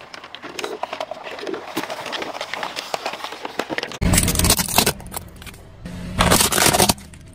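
Car tyre crushing plastic objects: a run of crackling and creaking as plastic Coca-Cola bottles are pressed, then a loud crunch about four seconds in and another near the end as plastic toys break under the wheel.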